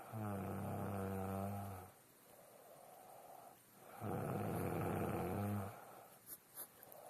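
A woman snoring in her sleep: two long snores of about two seconds each, with quieter breaths between them. Two faint clicks come near the end.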